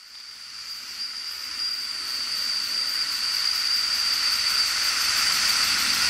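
Small homemade oscillating, double-acting steam engine running: a steady hiss of steam with a thin high whine on top, growing louder over the first few seconds.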